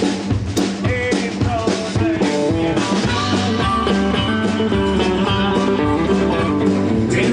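Rock and roll band music: electric guitar playing over bass and drums.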